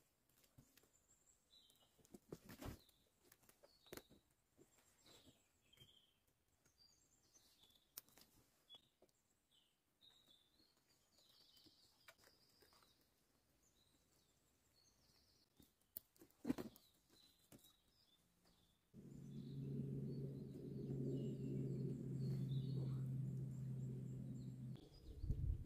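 Scattered dry clicks and knocks of bark slabs being handled and pressed onto a shelter roof, with small birds chirping. Near the end a steady low hum sets in for about six seconds and cuts off abruptly; it is the loudest sound here.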